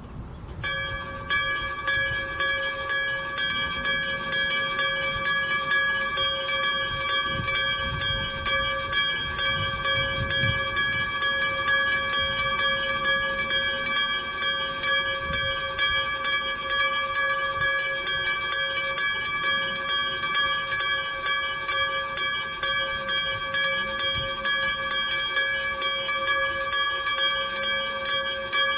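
Iron gong-type electric level-crossing warning bell, a 1970 Kyosan unit, starting up about a second in and then striking rapidly and evenly, its ringing tone held between strokes. It is the crossing's warning that a train is approaching.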